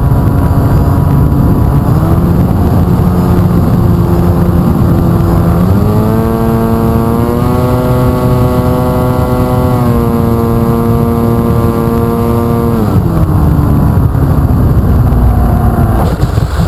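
FPV49 V2 flying wing's motor and propeller running, heard from the onboard camera along with wind rush. The pitch steps up about two seconds in, climbs sharply around six seconds in and holds high, then falls back around thirteen seconds in. Near the end the sound turns uneven as the plane touches down in the snow.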